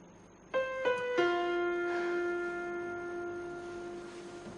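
Soft background score on a piano-like keyboard: three notes falling in pitch, the last held for about three seconds.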